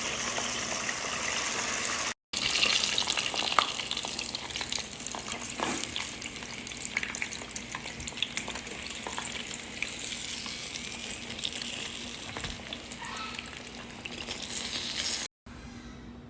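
Breaded chicken frying in hot oil: a steady sizzle with scattered crackles. The sound cuts out briefly about two seconds in and again near the end, and is quieter after the second break.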